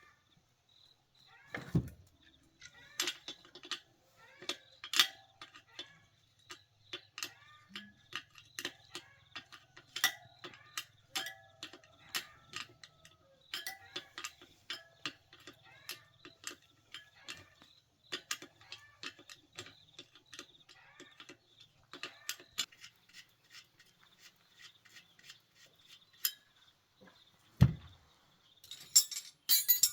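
Irregular metallic clinks and knocks, several to a second, a few of them sharper and louder, with a burst of quick clinks near the end.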